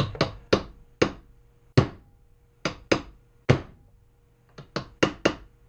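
Hammer blows on metal, about a dozen sharp strikes in irregular groups, peening dimples around the bore to lock a loose-fitting steering bearing bushing in place.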